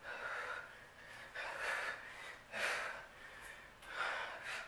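A woman breathing hard from exertion during a dumbbell workout. She takes four loud, rasping breaths, about one every second and a half, in time with her reps.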